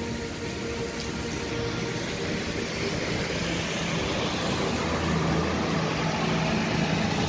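Heavy rain pouring steadily onto a road, a continuous hiss. A motor vehicle's engine approaches through the downpour, growing louder over the last couple of seconds, over a faint steady hum.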